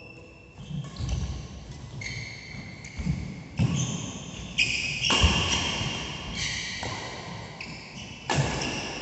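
Badminton doubles rally: racket-on-shuttlecock hits and players' footfalls on the court mat about once a second, each with a ringing echo from the hall. The loudest hit comes about five seconds in.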